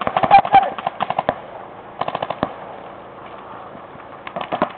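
Paintball markers firing rapid strings of shots. One burst comes at the start, another about two seconds in, and a third near the end, with a quieter gap between.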